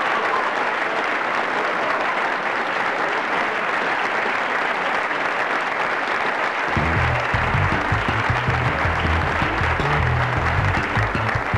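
Crowd applause, an even wash of clapping, and about seven seconds in a bass guitar line starts under it as a song begins.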